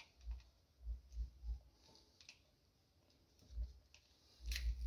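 Faint, irregular clicks and low knocks of a screwdriver working the mounting screws of a wall light switch and the switch being handled in its box.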